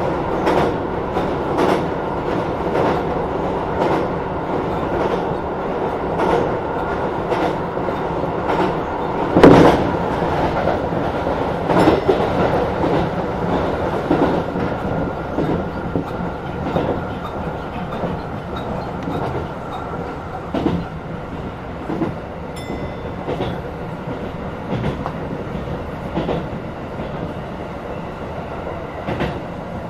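Tokyo Metro 16000 series electric train running on the rails, a steady rumble with repeated wheel clicks over rail joints; one louder knock comes about ten seconds in. The sound grows a little quieter toward the end.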